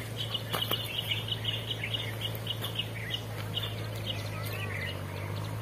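A bird calling: a quick run of short, high chirps for about four seconds, then a few sweeping, curved notes near the end. A steady low hum runs underneath.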